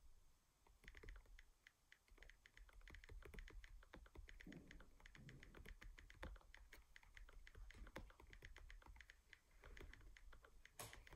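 Typing on an iPad's on-screen touchscreen keyboard: a quick, irregular run of short, quiet taps and clicks, starting about a second in.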